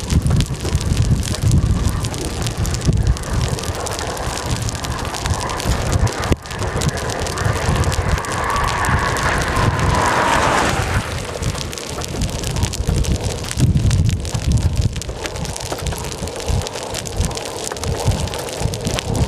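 Gusty wind buffeting the microphone over a steady hiss of storm rain and wind. A faint whine falls in pitch about ten seconds in.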